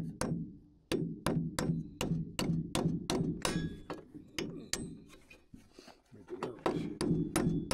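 Steel hammer driving nails through a galvanized steel joist hanger into wood: quick repeated blows, about three a second, with a pause of a couple of seconds midway before the hammering resumes.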